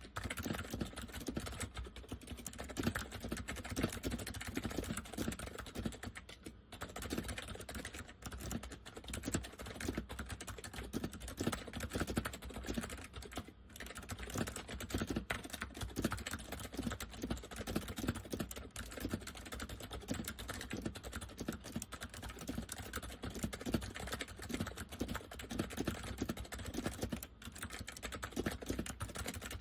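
Fast continuous typing on an Acer 6312K7 keyboard with Acer semi-mechanical switches, a dense patter of keystrokes with a deep-sounding chassis. The typing pauses briefly three times, about 6, 13 and 27 seconds in.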